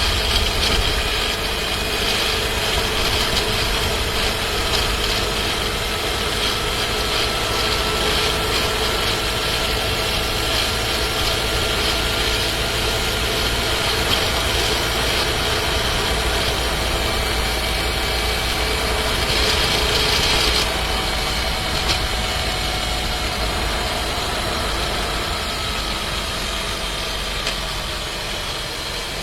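Skoda Scala 1.5 TSI's engine and seven-speed dry-clutch DSG (DQ200) heard from inside the cabin while driving at constant throttle and when lifting off. The steady running noise carries a rattling from the transmission, which the owner takes for a fault. A brief louder rush of noise comes about twenty seconds in.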